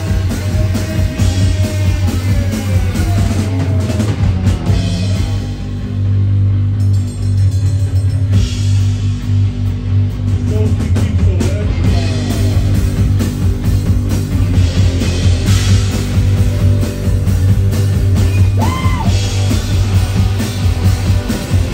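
Live rock band playing loudly: electric guitars, bass guitar and drum kit, the cymbals dropping back briefly about a third of the way in.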